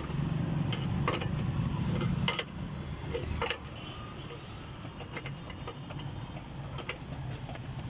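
Low vehicle rumble from nearby traffic, louder for the first two seconds or so, with scattered light clicks and knocks from a hand working at the plastic wheel-arch liner behind a car's tyre.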